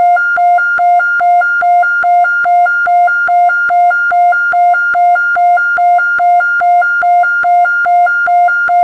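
1970s Japanese police siren, electronic, switching rapidly back and forth between a low and a high tone about two and a half times a second, steady and unchanging.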